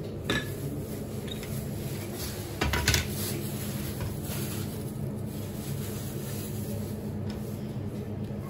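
Kitchen handling sounds on a wooden cutting board as a digital scale and a sucuk sausage are set down: a few light clicks and one louder knock about three seconds in, over a steady low hum.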